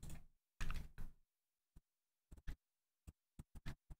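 Computer mouse and keyboard clicking: about eight sharp, single clicks at uneven spacing over the last two and a half seconds, after a short soft noise in the first second.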